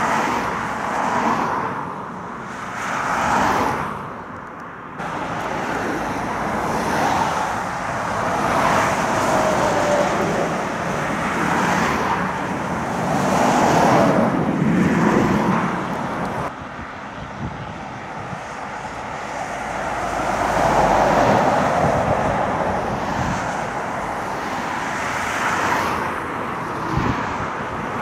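Lorries and cars passing one after another on a main road, each swelling and fading as it goes by, with wind buffeting the microphone.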